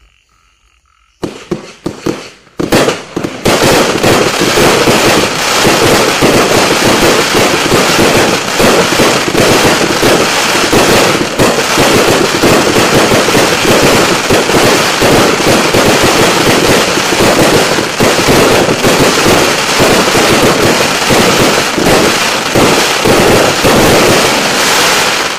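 Triple Force Destruction fuse-connected finale firework cakes firing. A few separate launches about a second in, then a dense rapid barrage of shots and bursts, fired too fast to count, that keeps on until the end.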